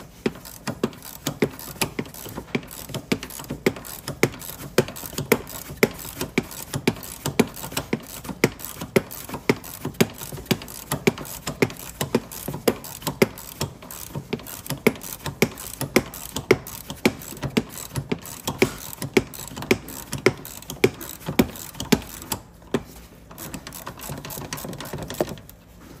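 Ratchet wrench with a T50 Torx socket clicking steadily, about two clicks a second, as it backs out the seat belt pretensioner's anchor bolt. The clicking pauses briefly near the end, then resumes for a few more clicks.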